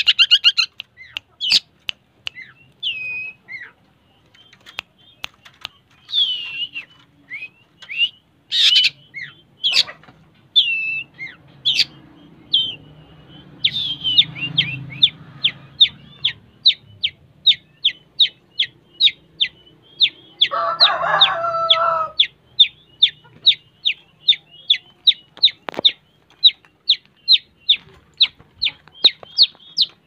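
Caged long-tailed shrike singing actively: a varied run of high whistles and chattering notes, then from about halfway a long, even series of short, sharp high calls at about two or three a second. A lower, longer call breaks in about two-thirds of the way through.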